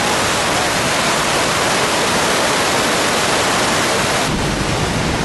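Dam floodwater rushing and churning in a steady, loud roar. About a second before the end the sound changes, with more low rumble coming in.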